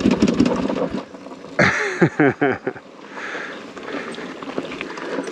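Rolling and clatter of a KTM 790 Rally motorcycle during a failed push-start, its engine not firing, for about the first second. Then a person's voice makes a few short sounds that fall in pitch, about two seconds in.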